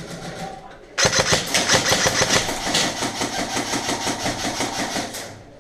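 Airsoft electric gun firing one long full-auto burst: a rapid, even rattle of shots over the gearbox motor's whine. It starts suddenly about a second in, lasts about four seconds, then dies away.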